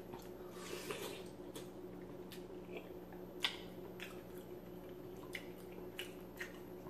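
Close-up chewing of sauce-coated rotisserie chicken: scattered wet mouth smacks and clicks, one sharper click about halfway through, over a faint steady hum.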